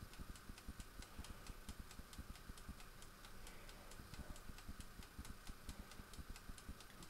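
Faint, steady, fast ticking, about four ticks a second, typical of the air fryer's clockwork 30-minute timer running down.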